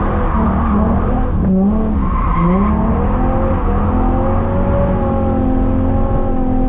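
Holden VY Commodore Calais engine revving up and down under load as the car drifts, with tyres squealing.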